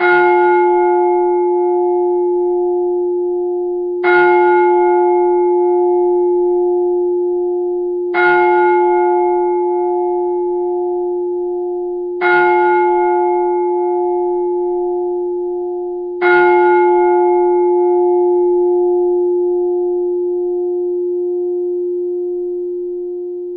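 A bell struck five times, about four seconds apart, each stroke ringing on with a clear steady pitch and a wavering upper tone until the next.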